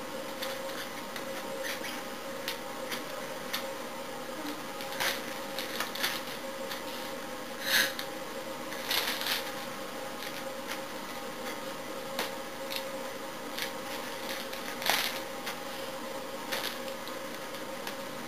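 Plastic packaging being handled: irregular crinkles and small clicks, with a few louder crinkles about eight, nine and fifteen seconds in, over a faint steady hum.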